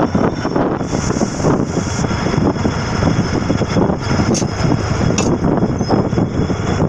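Diesel locomotive engine running close by, a steady heavy rumble, as the locomotive is uncoupled from a flat wagon. Two brief sharp sounds cut through it about four and a half and five seconds in.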